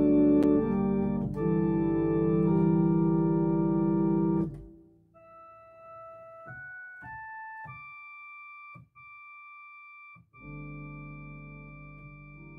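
Keyboard music with an organ-like sound: loud sustained chords that stop about four and a half seconds in, then a quiet, high melody of single held notes, and a soft held chord near the end that slowly fades.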